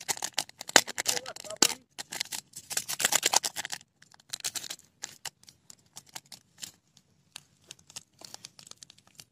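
Small sachet crinkling and being torn open by hand: a dense crackle for the first four seconds, then sparser crackles.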